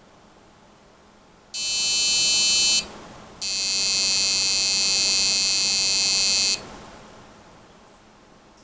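Two long, buzzy electronic beeps from a PC speaker buzzer on a 486 motherboard's speaker header, one of just over a second starting about a second and a half in, then a longer one of about three seconds, as the board fails to boot from its floppy drive.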